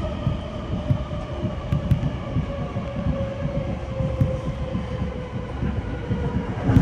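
Electric commuter train running, heard from inside the car: a low rumble of wheels on rail with small irregular knocks, under a thin motor whine that falls slowly in pitch.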